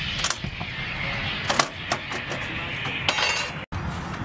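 Low rumble trailing after an M777 155 mm howitzer shot, with several sharp metallic clinks and knocks as the crew works the gun.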